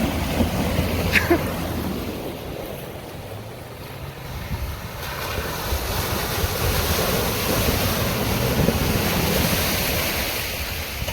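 Jeep driving through a water crossing: water rushing and splashing around the vehicle over the low running of the engine, with wind noise on the microphone.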